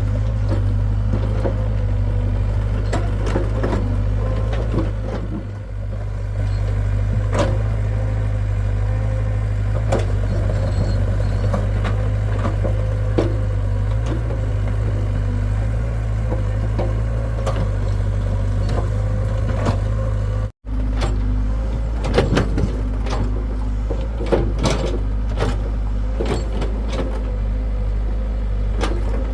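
Hitachi excavator's diesel engine running steadily, with scattered clanks and knocks from the machine working. The sound cuts out for an instant about two-thirds of the way through.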